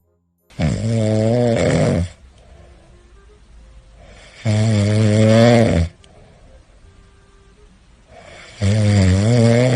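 A domestic cat snoring in its sleep: three loud, low-pitched snores about four seconds apart, each lasting about a second and a half, with quieter breathing between them.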